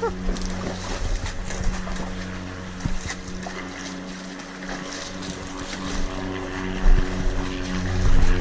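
An engine running steadily, a low even hum, with wind noise on the microphone.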